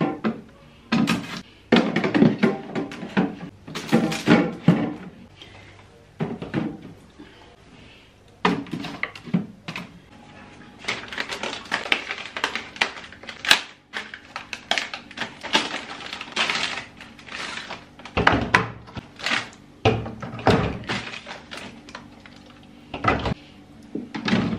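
Groceries being packed into a refrigerator: plastic bottles and packages knock and thunk as they are set on the shelves and door racks, with plastic bag rustling, at irregular intervals, over background music.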